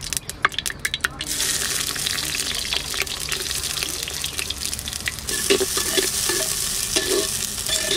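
Sliced red onions dropped into hot mustard oil in a clay pot: a few light clicks, then about a second in a sudden steady sizzle as they start frying. In the second half a metal spatula stirs and scrapes the onions against the clay.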